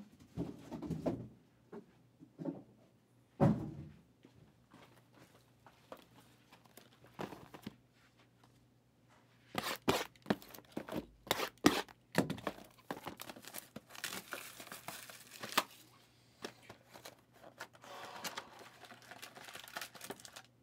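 A few dull thuds of boxes being handled, then the packaging of a sealed case of trading-card hobby boxes being torn open, with plastic wrap crinkling and tearing for several seconds and lighter crinkling near the end.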